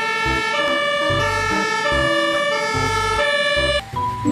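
Fire engine siren sounding, its tones stepping between pitches every fraction of a second over a low pulsing beat. It cuts off abruptly shortly before the end, where a single steady tone starts.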